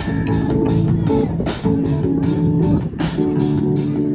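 Music with guitar and bass guitar playing over a steady beat.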